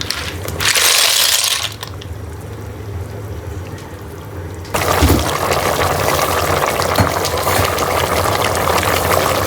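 Water running or being poured: a loud rush about a second in, then a steadier, crackly run of liquid from about five seconds on, over a low hum.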